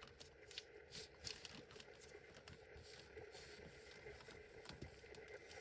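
Near silence, with faint, irregular clicks scattered through it.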